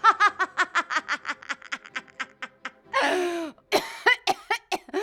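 A woman's exaggerated witch cackle: a fast run of short 'ha-ha' pulses that fades over about three seconds. It then breaks into a breathy, falling squeal and a few short sputters, a laugh the actress herself says does not come out right.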